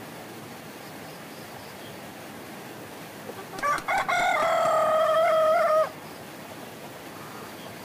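A rooster crows once, a single drawn-out crow of about two seconds starting around three and a half seconds in, over a steady background hiss.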